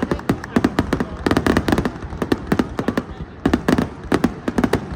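Fireworks display: a rapid, irregular barrage of sharp bangs and crackles, several a second, easing briefly about three seconds in.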